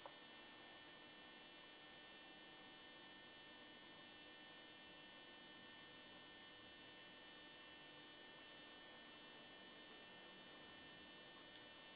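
Near silence: a faint steady electrical hum, with a faint high tick about every two seconds.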